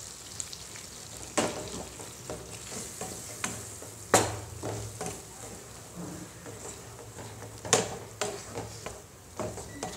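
Wooden spatula stirring thick tomato dal in a pan, scraping through it with a few sharp knocks against the pan, loudest about four seconds in and again near eight seconds, over a soft sizzle of the hot dal.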